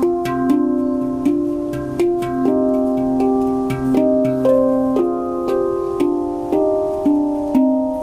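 Handpan played with the fingers: a slow melodic line of single struck steel notes, about two a second, each ringing on and overlapping the next, with a deep low note sounding now and then beneath them.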